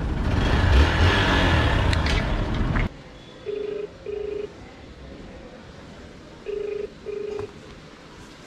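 A loud rushing noise cuts off about three seconds in. Then a mobile phone plays the ringback tone of an outgoing call, a low double beep heard twice about three seconds apart: the call ringing without being answered.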